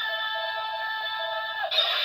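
DX Seiken Driver toy transformation belt playing its electronic transformation music through its small speaker: a held synth chord that breaks off about a second and a half in and gives way to a brighter, noisier passage.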